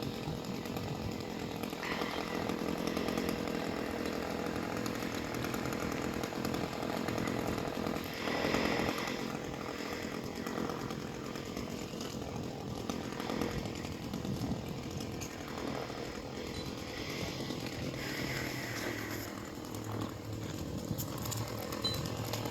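Chainsaw running steadily, the climber's saw working at the top of a palm tree to cut off the crown.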